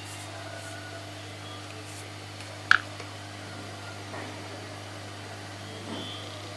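Steady low hum, with one sharp click a little before the middle.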